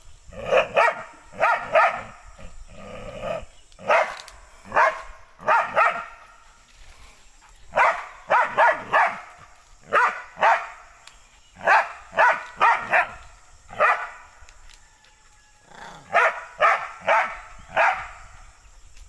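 A dog barking repeatedly in quick runs of two to four loud barks, every second or two, up at a monkey in a tree.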